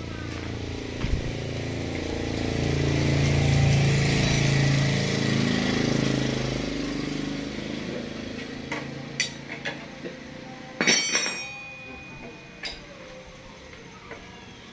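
A motor vehicle engine passes by, swelling and then fading over the first several seconds. After that, metal tools clink a few times, and one clink rings briefly.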